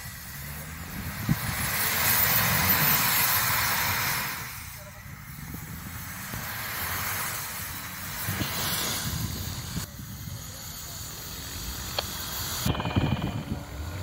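Toyota Land Cruiser 100's 4.2-litre straight-six diesel engine labouring as the 4x4 pushes slowly through deep snow, with a loud rushing hiss from about one to four and a half seconds in and again briefly later.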